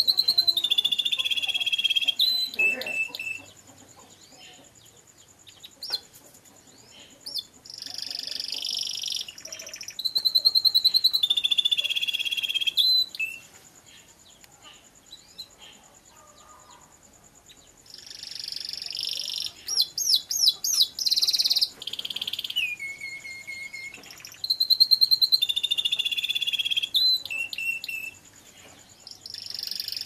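Yellow domestic canary singing: phrases of fast trills and rolls, some sliding down in pitch, repeated in about six bursts with pauses of a few seconds between them.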